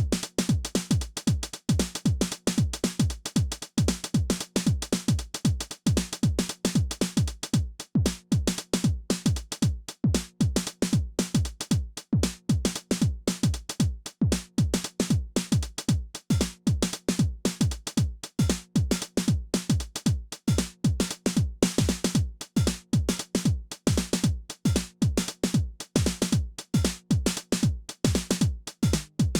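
Behringer RD-9 analog drum machine playing a steady electronic drum pattern: a kick drum pulsing in even time with hi-hats over a held low tone. The high cymbal sound gets brighter about three-quarters of the way through.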